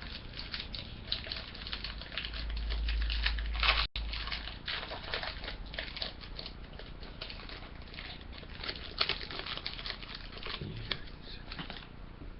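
Foil card-pack wrapper crinkling and tearing as it is worked open by hand, in a dense run of irregular crackles. A low rumble of handling noise builds from about two seconds in and cuts off abruptly just before four seconds.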